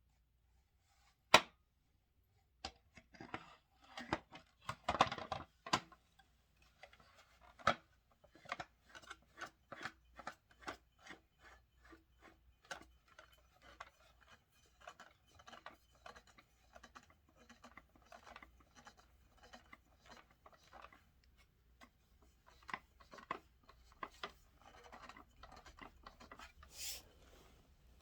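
Plastic parts of a SodaStream Fizzi being handled and twisted into place, rubbing and clicking. There is a sharp click about a second in, then irregular scraping, and a run of ticks about two a second through the middle.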